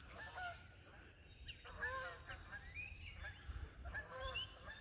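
A flock of geese honking, many short calls repeating and overlapping.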